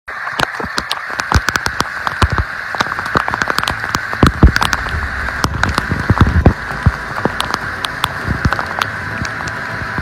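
Torrential rain pouring down on flooded pavement, a steady hiss dotted with many sharp, close drop hits, with a low rumble about four to six seconds in.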